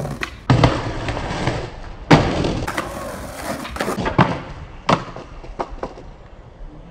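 Skateboard sounds: wheels rolling on pavement, broken by several sharp clacks and slams of the deck hitting the ground, the loudest about two seconds in. Near the end the board clatters onto the sidewalk as the skater steps off it.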